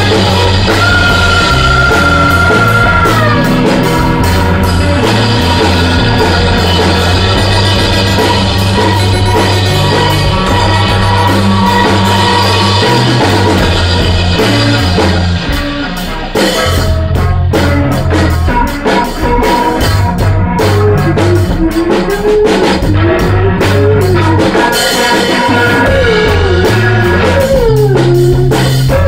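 A rock band jamming: drums, bass and electric guitar playing loudly, with a held high note in the first few seconds and a brief drop in the music about halfway through. In the second half a singing voice wavers through a Leslie rotating-speaker cabinet.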